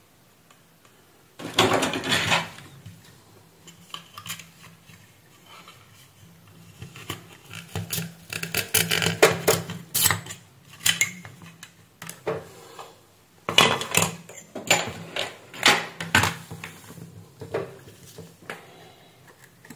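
Thin sheet-metal cover of a satellite receiver and its opened case being handled: a string of light metallic clicks and clatters, loudest about a second and a half in and again around two-thirds through.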